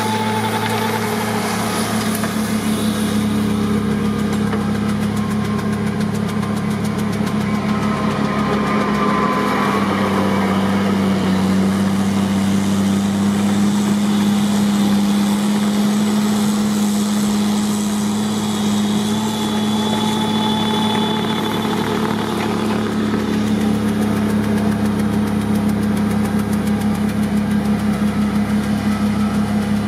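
Engine of a large truck-mounted snowblower running steadily while it blows snow, a constant low drone.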